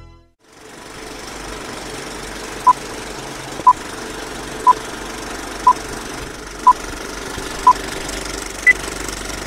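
Old film projector running with a steady mechanical noise, under short countdown beeps, one a second. Six beeps are at one pitch and a seventh, near the end, is higher.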